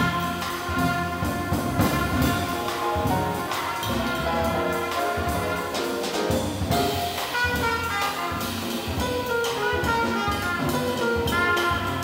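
Small jazz group playing live: trumpet played over grand piano, upright bass and drum kit, with long held trumpet notes and a steady beat from the drums.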